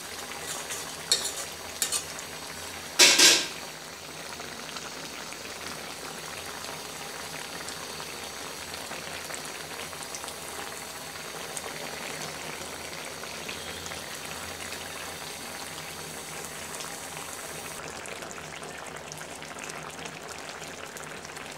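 Fish curry with potatoes and tomatoes simmering in a pot, its thick gravy bubbling steadily. A few light clicks come in the first two seconds, and a short, loud burst of noise about three seconds in.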